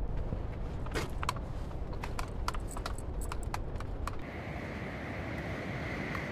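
Footsteps on a woodland trail, an irregular run of sharp clicks and snaps of twigs underfoot over low wind rumble. After about four seconds the clicks stop and a steady hiss of surf takes over.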